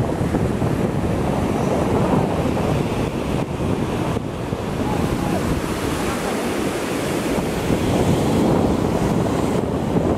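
Ocean surf breaking and washing up a sandy beach, a steady rushing roar, with wind buffeting the microphone.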